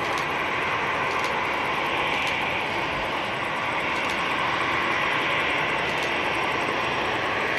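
Airbus A340-300's four CFM56 turbofan engines running at taxi idle as the airliner rolls slowly along the taxiway: a steady jet engine rush that holds even throughout.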